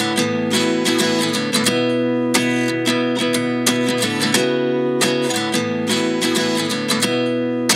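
Background music: strummed acoustic guitar, a steady rhythm of chords.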